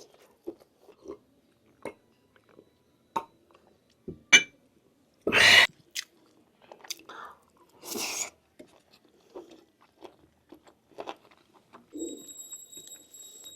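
Close-miked chewing and biting of lamb meat off the bone, with scattered wet mouth clicks and smacks. There are two louder, longer noisy bursts about five and a half and eight seconds in.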